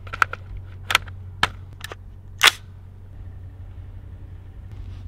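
Clothing and gear being handled as a hunter pulls on a snow ghillie suit: a few sharp clicks and snaps, the loudest about two and a half seconds in, over a steady low hum.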